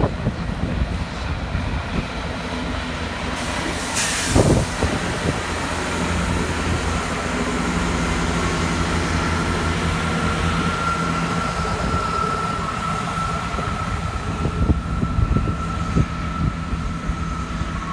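GWR Turbo diesel multiple unit pulling away: its underfloor diesel engines run with a steady drone and a steady high whine above it. There is a sharp clank about four seconds in.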